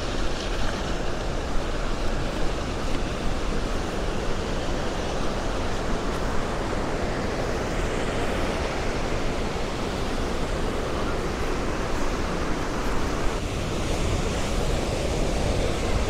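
Steady rushing water of the Upper Düden waterfall, an even, unpitched noise that grows a little louder near the end.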